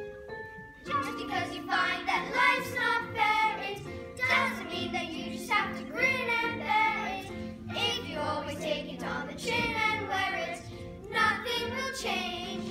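Children singing a musical-theatre song, phrase after phrase, over backing music.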